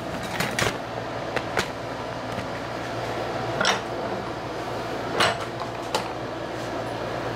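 Arbor press and aluminium pulley being worked as steel pins are pressed in: a handful of short, sharp metal clicks and knocks, spaced irregularly, over a steady low hum.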